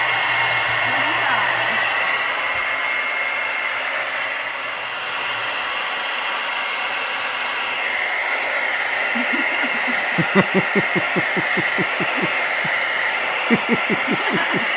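Hand-held hair dryer blowing steadily with a whine, used to melt ice off a refrigerator's evaporator coil during defrosting. A fast pulsing, fluttering sound joins over it about ten seconds in and again near the end.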